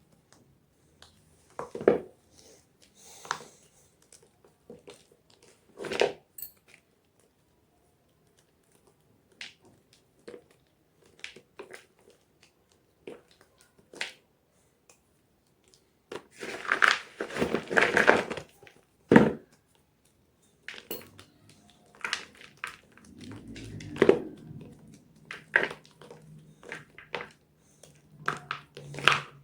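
Blocks of gym chalk being crushed and crumbled, giving scattered crisp crunches with pauses between them and a dense run of crunching about two thirds of the way through.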